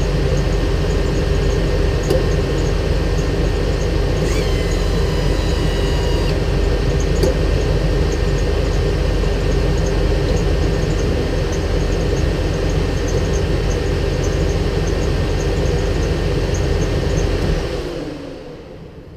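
A machine running steadily with a low rumble and a steady whine, which winds down and stops near the end.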